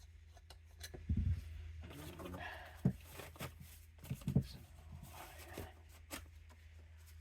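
Knocks, clicks and rustling of carburetor parts and tools being handled on a work table, with a steady low hum underneath. The loudest is a dull thump about a second in; a sharp click follows near the middle.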